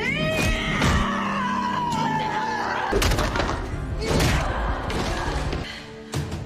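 Action score music under a hand-to-hand fight, with several hard hits and thuds: about a second in, then twice more a few seconds later.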